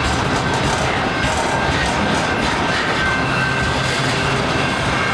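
A train rolling past: a steady, loud rumble and rail noise with a thin, steady high-pitched squeal running through it.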